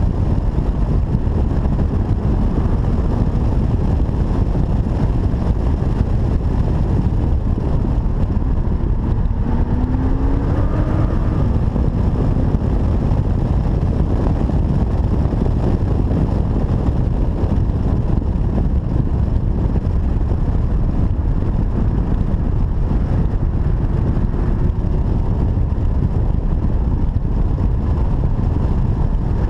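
Open-top BMW convertible driving at road speed, heard from inside the cabin: a steady rush of wind, road and engine noise. A faint rising engine note comes through about ten seconds in, and again more weakly later on.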